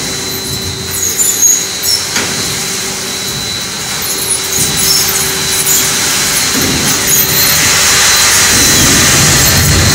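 Popcorn coating machine running: its rotating stainless-steel drum tumbles caramel-coated mushroom popcorn, giving a steady mechanical rush with a thin high whine and a lower hum that comes and goes. There are a few sharp ticks in the first couple of seconds, and the noise grows louder near the end.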